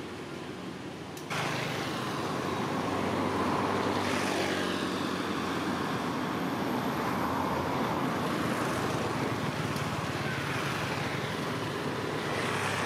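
Steady street traffic noise, with motor vehicles passing. The level steps up suddenly about a second in.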